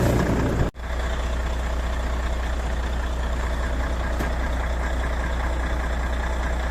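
Volvo truck's diesel engine idling steadily, with a brief dropout just under a second in.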